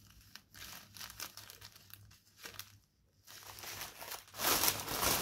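Plastic packaging crinkling as small zip-lock bags of diamond painting drills are handled. Soft, scattered rustles give way about four seconds in to louder, denser crinkling as hands rummage in the clear plastic outer bag.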